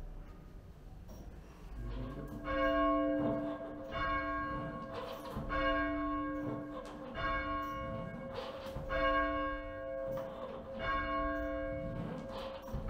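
Church tower bells rung full-circle by rope from the ringing chamber below. After a short lull, strikes begin about two seconds in and repeat roughly once a second, each note ringing on into the next.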